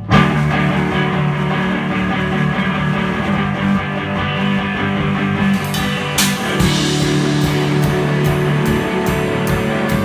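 Rock band playing in a rehearsal room: amplified electric guitars come in all at once on a held chord, and the drum kit joins about halfway through with steady cymbal hits, about two a second.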